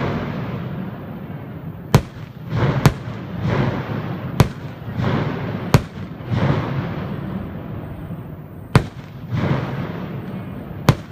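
Ground-level fireworks (jiware hanabi, 'ground-crack' fireworks) going off in quick succession: six sharp bangs at irregular gaps of one to three seconds, among repeated rushes of noise that swell and fade away.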